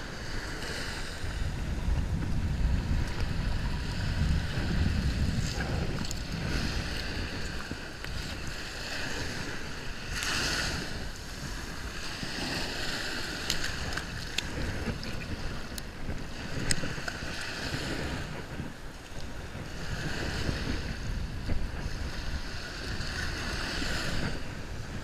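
Small surf waves washing up the beach, with wind buffeting the microphone in a steady low rumble. A few light clicks come about halfway through.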